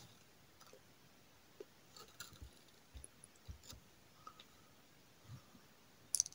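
Faint scattered clicks and soft taps from handling a glass dropper bottle of serum, with a brief, sharper cluster of clicks near the end.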